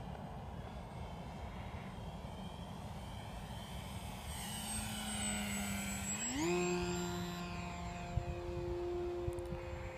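Electric motor and propeller of an E-flite Maule M7 RC plane on a low pass, running steadily, then rising sharply in pitch about six seconds in as the throttle opens for the climb, and holding the higher note. A faint high whine sits above it, over a steady low rumble.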